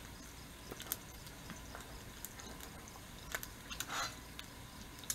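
Bacon frying on a cast iron griddle: a faint sizzle with a few scattered small pops and crackles.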